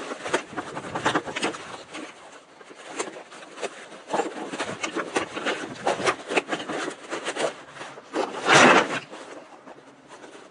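Nylon webbing and fabric of a MOLLE rucksack rustling and scraping as straps are worked loose and pouches pulled off, with many small clicks and taps. A louder scraping rush, just under a second long, comes about eight and a half seconds in.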